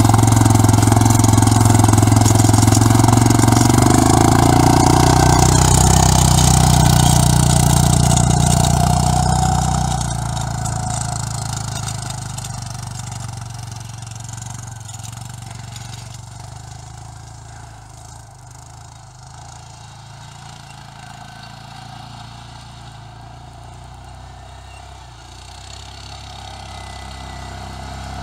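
ATV engine running as the quad drives on its homemade half-tracks through snow, loud and close at first, fading away after about ten seconds as it drives off, then growing louder again near the end as it comes back.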